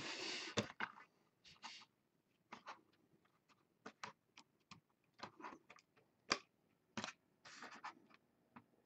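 Trading cards being handled on a table: a short rustle at the start, then scattered faint clicks and scratches of card stock sliding and tapping.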